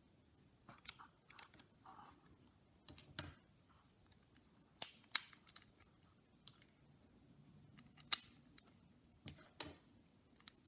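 LEGO plates being pressed and snapped onto base plates: a run of sharp plastic clicks at irregular intervals, some of them loud, with softer handling clicks between them.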